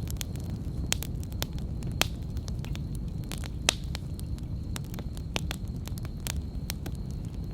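Wood campfire burning: a steady low rumble of flames with scattered sharp crackles and pops from the burning logs, a few louder snaps about two and three and a half seconds in.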